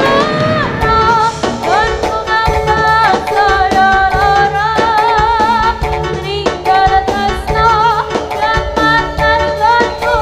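Live jaranan senterewe music: drums and percussion keep a steady beat under a high, wavering melody line with strong vibrato, sung or played, that glides and holds notes.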